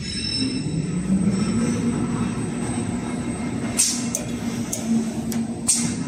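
PC2000SA servo-driven automatic core cutter running as it cuts a paper core: a steady machine hum that rises in pitch about a second in and then holds, with a few sharp clacks in the second half.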